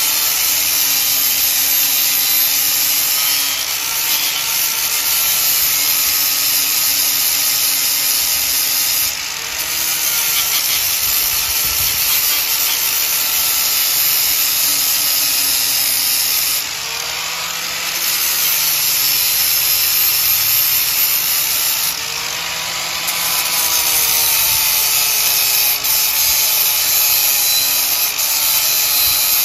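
Angle grinder grinding a flux-core weld bead smooth on steel, a steady high-pitched hiss over the motor's whine. The motor's pitch sags and recovers a few times as the disc is pressed harder or eased off.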